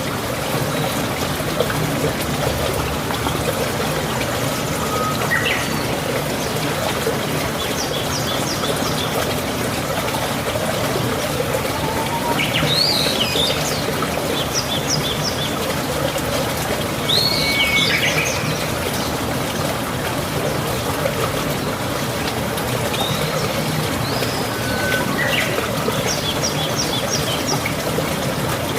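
Small birds chirping in short phrases of quick high notes every few seconds, over a steady sound of running water like a stream.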